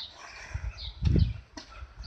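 Small birds chirping in short high notes, with a loud low rumble about a second in, like wind or handling on the microphone.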